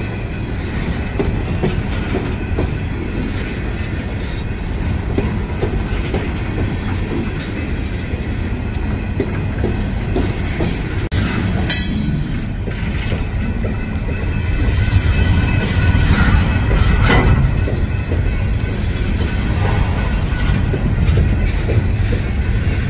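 Freight train hopper cars rolling past at the crossing: a steady low rumble of steel wheels on the rails, getting a little louder about two-thirds of the way through.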